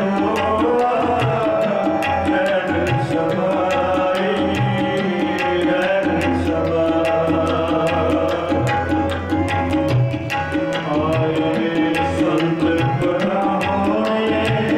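Sikh kirtan music: tabla playing a steady rhythm under sustained harmonium chords.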